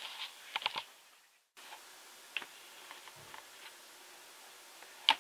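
Handling sounds from a camera being moved and set up: a few light clicks just under a second in, another click, and a sharper knock near the end, over a faint steady hiss. About a second and a half in there is a brief cut to silence.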